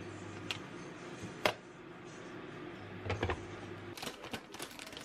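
A few sharp clicks and knocks of a plastic scoop against a clear plastic canister, then a plastic package crinkling as it is handled near the end.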